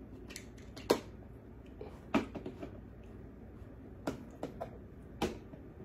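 A spoon and a small cornstarch container clicking and tapping as the powder is scooped and the container handled: a handful of short, sharp taps spread about a second apart.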